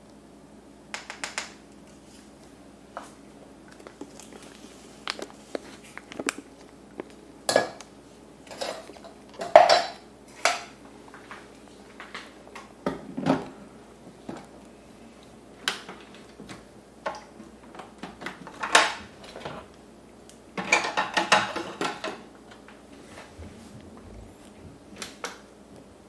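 Scattered metal and ceramic clinks and knocks: a metal spoon tapping and scraping ground coffee into a stainless steel espresso portafilter, then the portafilter and cups being set in place on the machine, with a longer rattling stretch about three quarters of the way through.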